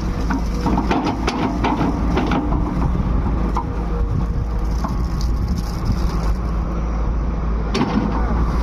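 Heavy machinery engine running with a steady low rumble, with scattered clicks and knocks, the sharpest one near the end.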